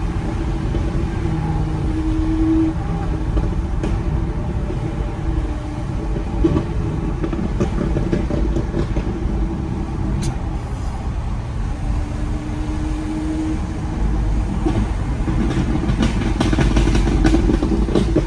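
Car engine running steadily amid city street traffic: a constant low rumble with a steady drone that fades in and out, and a burst of crackling clicks near the end.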